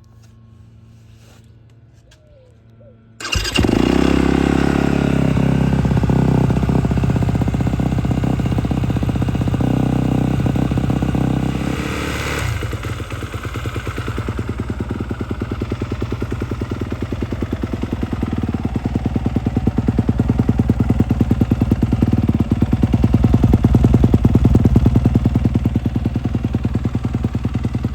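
Off-road dirt bike engine starting for the first time after a top-end rebuild: it fires about three seconds in and runs at a high, steady speed, then drops about twelve seconds in to a lower, evenly pulsing idle that rises a little near the end.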